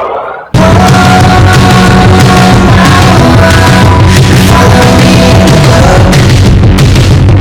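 Loud background music with a steady beat. In the first half second a rising sweep fades into a brief dropout, then the music cuts back in abruptly.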